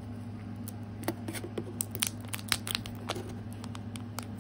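Kinder Joy egg's plastic wrapper being torn open and handled: a scatter of short crinkles and snaps starting about a second in.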